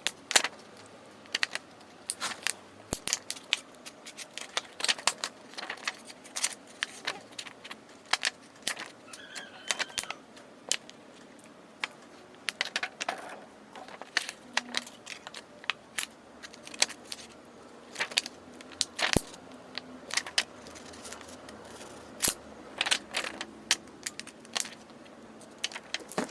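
Irregular small clicks, taps and light scraping of hand tools prying open a Samsung A03 smartphone to free its glued-in battery, with no heat applied.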